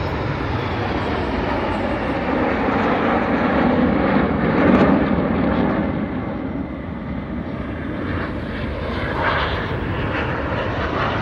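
Aermacchi MB-339 jet aircraft flying past, their turbojet roar swelling to a peak about five seconds in and then easing, with a faint falling whine near the start.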